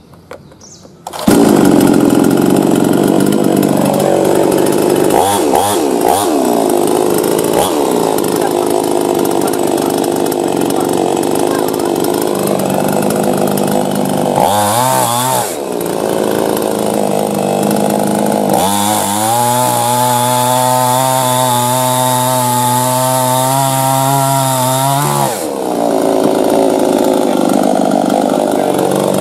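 Starkut Classic chainsaw starting suddenly about a second in and running loud at high speed as it cuts through a dry wooden stump. Its pitch shifts briefly past the middle, then holds a steadier tone for several seconds before dropping back near the end.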